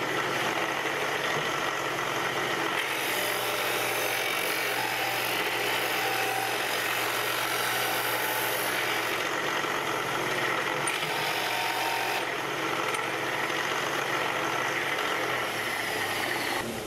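Benchtop belt-and-disc sander running steadily, its motor humming under the hiss of the sanding disc as a rough-ground metal piece is pressed against it to smooth the face flat.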